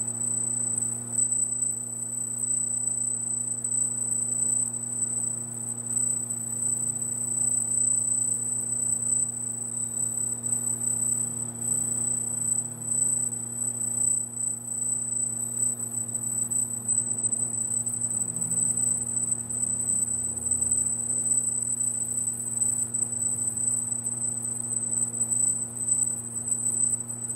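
Laser marking machine running as it engraves lettering onto a polished metal plate: a steady high-pitched whine over a low, steady hum.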